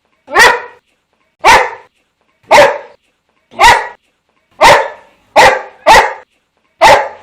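Boxer dog barking: eight single barks, mostly about a second apart, with two coming closer together about two-thirds of the way in.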